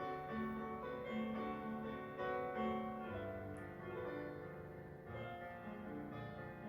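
Piano music from a silent film's accompanying score, with a melody of held notes over a bass line.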